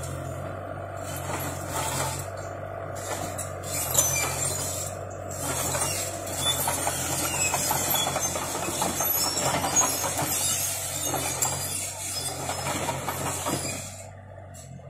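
Bobcat E37 mini excavator working, its engine running steadily underneath a loud rattling, hissing clatter of the machine in operation that starts about a second in and drops away near the end.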